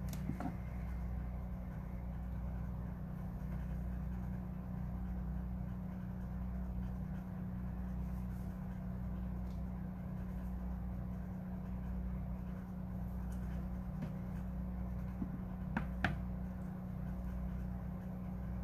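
A steady low mechanical hum runs without change, with a couple of light clicks about sixteen seconds in.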